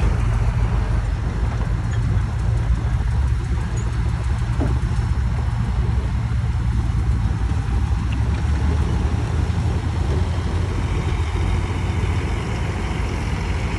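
Diesel engine of heavy earth-moving machinery running at a steady pace, a continuous low hum.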